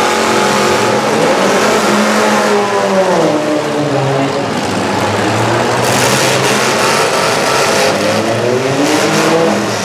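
Engines of several demolition derby cars revving at once, their pitch falling and rising as the drivers work the throttles.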